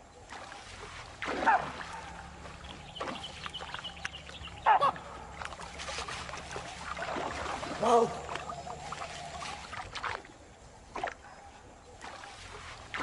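Baboons giving loud alarm barks, three sharp calls a few seconds apart, over water splashing as a crocodile holds a young baboon at the river's edge.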